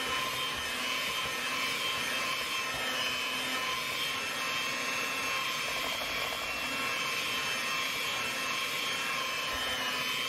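Electric hand mixer running steadily, its two beaters churning through thick sweet potato pie filling in a bowl, with a constant motor whine.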